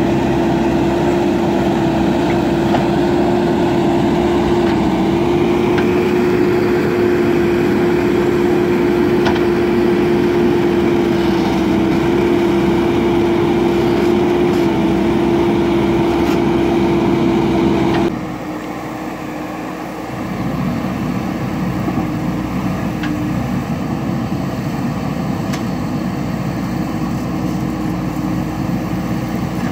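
JCB backhoe loader's diesel engine running hard and steady with a strong held tone. About two-thirds of the way through, the sound changes abruptly and gets a little quieter, then runs on steadily.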